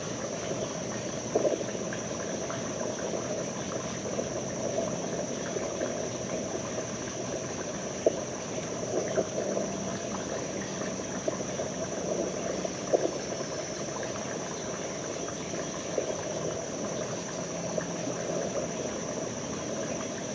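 Steady rush of creek water, with a thin steady high hiss above it and a few soft clicks scattered through.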